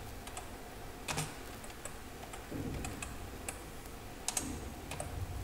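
Computer keyboard being typed on: a handful of separate, irregularly spaced key clicks.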